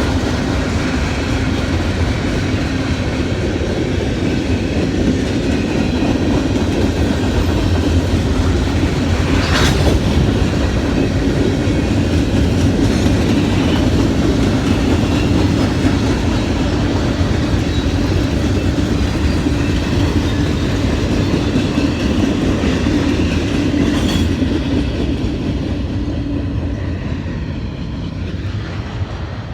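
Steady, loud rumble of a large vehicle running, with a faint steady tone over it and two brief sharp clicks, one about ten seconds in and one near the end; it fades over the last few seconds.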